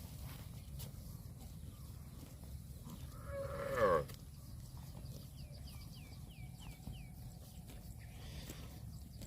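A cow mooing once, a single call of about a second that falls in pitch and cuts off sharply, about three seconds in.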